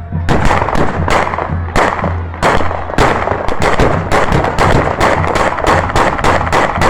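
A rapid, irregular string of loud celebratory bangs, about three a second, begins a fraction of a second in and keeps going, over music with a low drum beat.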